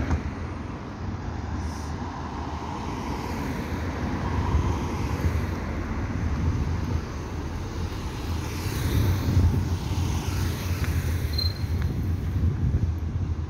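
Road traffic noise on a city street, with a car passing close by near the middle, its hiss swelling and fading, over a steady low rumble.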